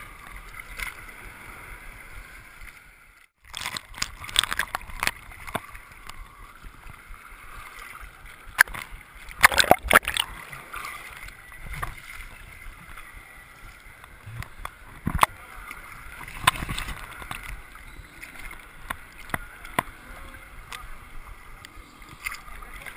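Seawater sloshing and splashing against a camera held right at the surface in shallow surf, with irregular sharp splashes, the loudest cluster about ten seconds in. The sound drops out briefly about three seconds in.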